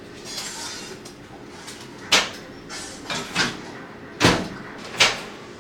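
Knocks and clatter of things being handled in a kitchen: four sharp knocks about a second apart, with fainter handling noise between them.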